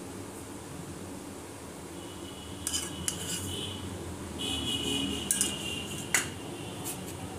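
A metal spoon clinking and scraping against a dish while curd is spooned over chickpeas. A few sharp clinks come in two clusters, the first about halfway through and the second, with the loudest clink, near the end, each with a brief ringing scrape.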